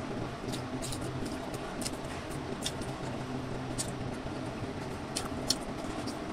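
Scattered soft clicks and one sharper click about five and a half seconds in as a burger is put together by hand and the bun is pressed down, over a steady low background hum.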